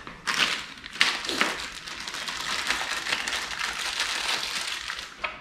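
Garment rack parts being handled while the caster wheels are fitted: two sharp knocks in the first second, then a long stretch of rustling and scraping.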